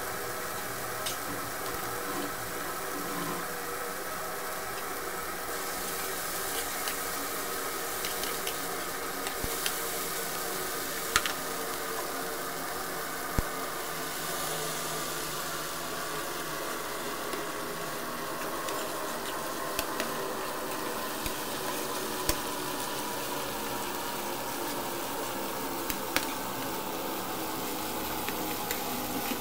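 Omena (small dried sardines) with tomatoes and onions sizzling as they fry in a non-stick pan. A metal spoon stirs them and now and then clicks and scrapes against the pan.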